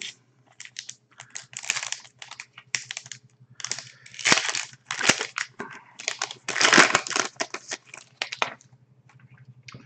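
Foil wrapper of a hockey card pack crinkling and rustling in irregular bursts as it is torn open by hand.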